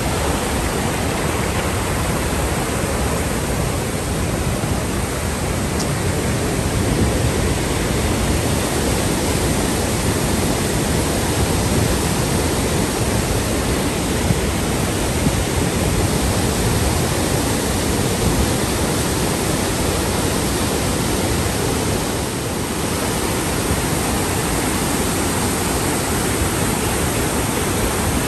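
Loud, steady rush of whitewater from the Una River's rapids and waterfall cascades.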